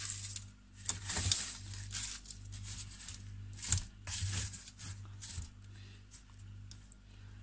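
Irregular scrapes and light knocks of a fork and food being worked in plastic tubs of beaten egg mixture and oat bran while coating a filled dough pocket. The loudest knock comes about four seconds in, and the sounds thin out near the end. A low steady hum runs underneath.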